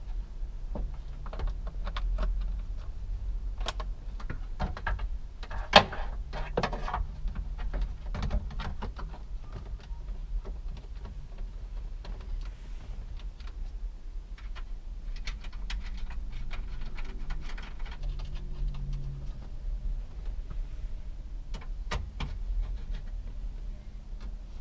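Scattered clicks and plastic knocks from a 2005 Chevrolet Impala's climate control panel being plugged in and pressed into the dashboard, with one sharp click about six seconds in.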